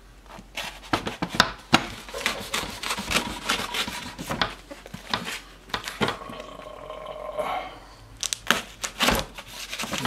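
A knife cutting and scraping through packing tape and wrapping paper on a cardboard parcel, with irregular scrapes, rubs and knocks as the parcel is handled on a wooden chest lid. A short, drawn-out tone sounds midway.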